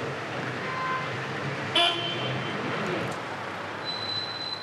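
City street traffic noise, with a short horn toot about two seconds in.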